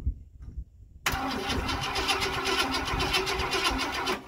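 1968 Ford Galaxie's 390 V8 cranked over by its starter motor with a fast, even chug for about three seconds, then cut off suddenly without the engine catching. The owner is unsure whether it is flooded.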